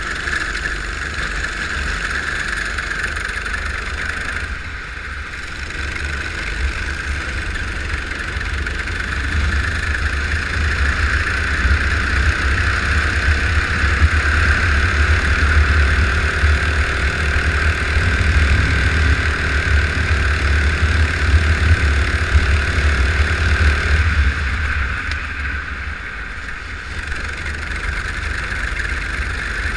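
Go-kart engine running at racing speed, heard from on the kart with a steady rumble and wind, its pitch rising and falling with the throttle and easing off about five seconds in and again near the end.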